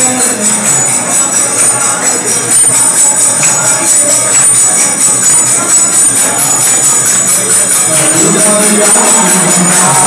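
Temple kirtan: a crowd of devotees singing devotional chant to the steady, rhythmic clash of small hand cymbals (kartals). The singing grows stronger near the end.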